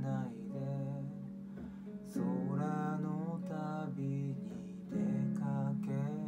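A man singing in Japanese to a strummed acoustic guitar, with fresh strums about two seconds in and again about five seconds in.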